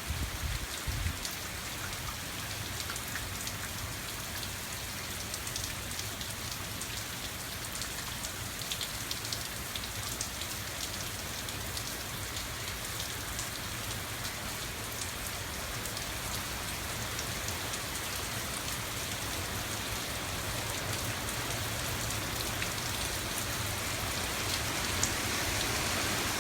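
Hurricane rain pouring down in strong wind, with a steady low rumble of wind buffeting the microphone; the rush slowly grows louder toward the end as a gust builds.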